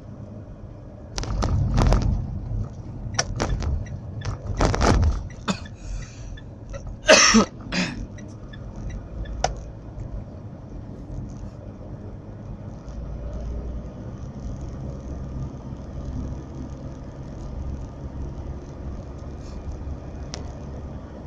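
Steady low rumble of a car's engine and road noise inside the cabin while driving. Several loud knocks or thumps in the first eight seconds, the loudest about seven seconds in.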